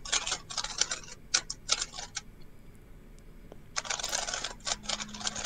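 A 3x3 speedcube being turned very fast during a solve: rapid plastic clicking in dense runs. About two seconds in it goes quiet for over a second, the solver's pause before the E-perm, then a last fast run of turning ends with a sharp click.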